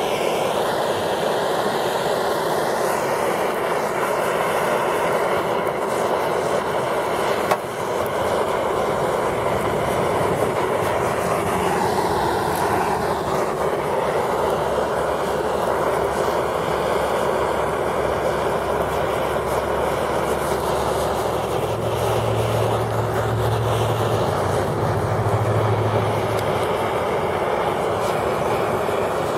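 Handheld gas torch flame running with a steady hiss, held on a burning polymer pistol magazine.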